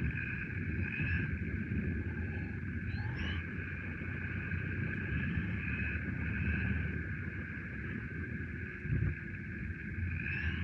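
Onboard sound of a radio-controlled electric touring car running on asphalt: a continuous rumble from the tyres and drivetrain with a steady high whine over it, and a brief rising whine about three seconds in and again near the end.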